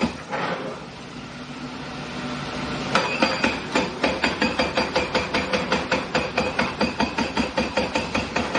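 Excavator-mounted hydraulic breaker hammer chiselling a concrete column in rapid, even blows, about six a second. It pauses for roughly the first three seconds, leaving only a steady hiss and the machine's running hum, then starts hammering again abruptly.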